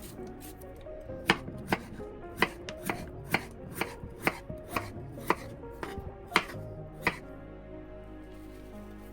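Knife chopping on a cutting board: about a dozen sharp strokes, roughly two a second, that stop a couple of seconds before the end.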